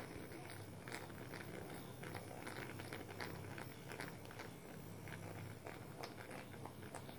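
Nano-Fill nano-chip pen running with a faint, low, steady hum as it is worked over the skin, with scattered small crackly clicks.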